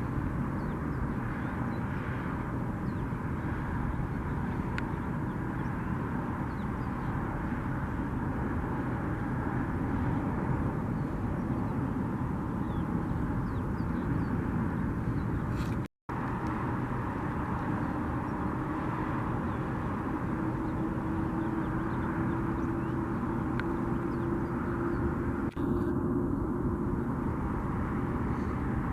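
Jet airliner engines running, a steady rush of noise. After a brief cut about halfway, a faint whine slowly rises in pitch.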